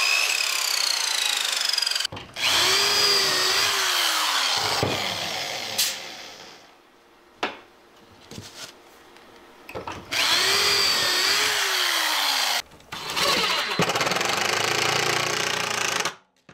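Woodworking power tools on pine boards: a miter saw motor whining through a cut, then a drill running in several bursts of a few seconds, each with a rising and falling whine, as pocket holes are bored and screws driven. The bursts are split by a quieter stretch of handling and stop abruptly near the end.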